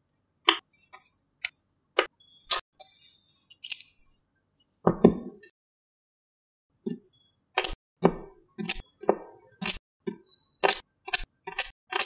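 Small magnetic balls clicking sharply as they snap together one at a time at an uneven pace. There is a brief rattle about three seconds in and a duller knock about five seconds in.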